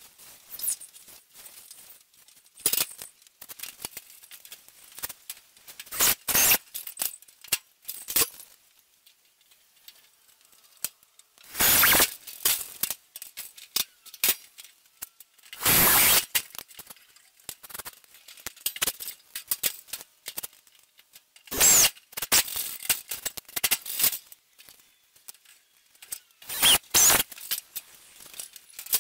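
Cordless drill driving self-drilling screws through small metal tabs into the sheet-steel floor of a filing-cabinet drawer, in several short bursts a few seconds apart. Between them, metal parts clink and rattle as they are handled.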